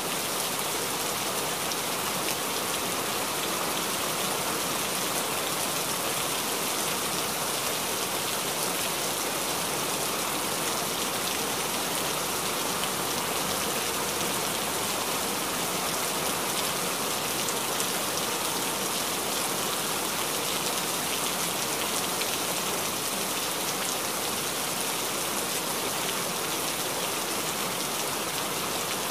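A steady, even hiss like falling rain, unchanging throughout, with no separate strokes or knocks.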